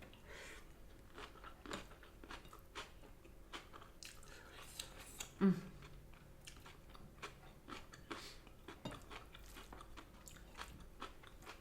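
Close-miked chewing of crunchy food: many small crunches and wet mouth clicks, with a brief voiced murmur about halfway through.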